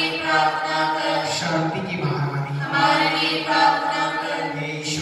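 Group of voices chanting Hindi rosary prayers in unison, unaccompanied, on sustained held notes.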